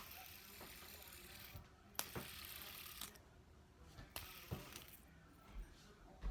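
A fidget spinner is flicked with a sharp click, then spins with a faint, even whirring hiss that dies away after a second or so. This happens three times.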